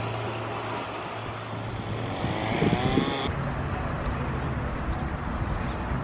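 A vehicle engine passing: a steady low hum whose pitch slides around the middle. The hiss above it cuts off suddenly a little past three seconds in.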